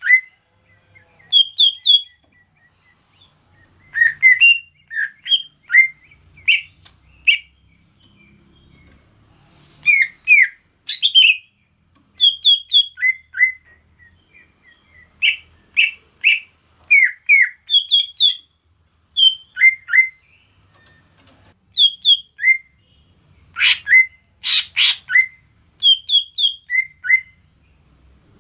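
Greater green leafbird (cucak ijo) calling: short chirps and down-slurred whistles in quick pairs and groups of two to four, with short gaps between, over a steady high hiss.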